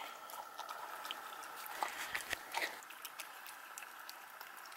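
A pet eating from a food bowl: chewing with scattered small clicks, a few louder ones around the middle, over a faint steady high hum.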